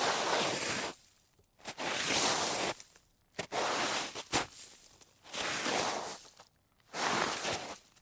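A series of slides over snow: about five short sliding scrapes, each lasting under a second, with brief pauses between them and a sharp click near the middle.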